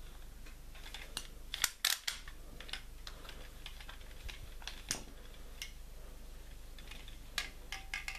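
Hard plastic toy pieces being handled: irregular sharp clicks and taps, loudest in a quick cluster about two seconds in and again near the end.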